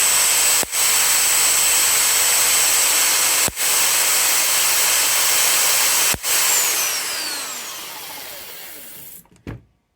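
MiniSpark 3D-printed electrostatic generator running with a steady whir, with a spark snapping across its spark gap three times, about every two and three-quarter seconds. Its spin then winds down in a falling whine and stops near the end, followed by a small click.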